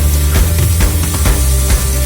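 Background music: hard-driving rock with a heavy bass line and a steady drum beat.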